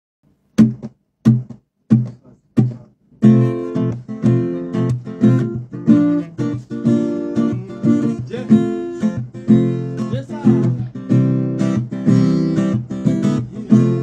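Acoustic guitar played solo: four short, sharp strikes about two-thirds of a second apart, then a steady, rhythmic strummed chord pattern from about three seconds in.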